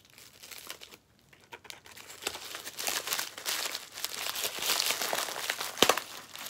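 A packaging bag crinkling and rustling as it is handled and opened, with a sharp click near the end.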